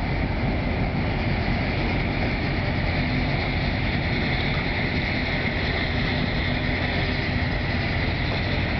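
Steady drone of a harbour tug's diesel engines working under load as it pulls a liner away from the quay on a towline, unchanging in level throughout.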